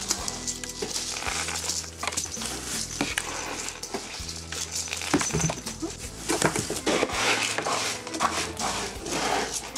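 Cat playing inside a cardboard box house, with irregular knocks and rustles of the cardboard as it bats at a cat-teaser toy, over steady background music.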